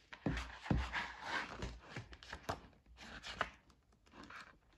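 Pages of a glossy album photobook being flipped through by hand: paper rustling, with several short flaps and taps as pages turn and fall.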